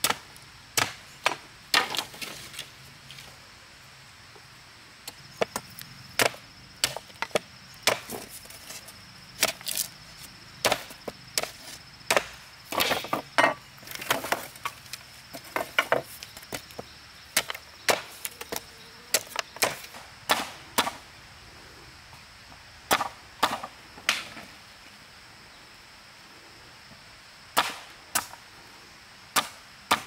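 Chopping strikes on wood, a few sharp blows at a time with short pauses between the groups.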